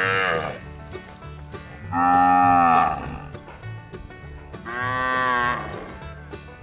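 Cattle mooing: one call trails off just after the start, then two long moos of about a second each follow, the first of the two the loudest, over background music.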